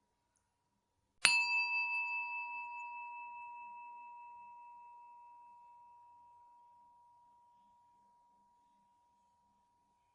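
A single strike of a high-pitched bell a little over a second in, ringing on with a slow wavering pulse and fading away over about eight seconds.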